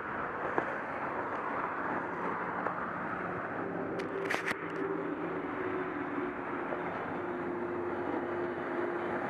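Steady rush of highway traffic passing. A steady hum joins a few seconds in, and a brief cluster of sharp clicks comes about four seconds in.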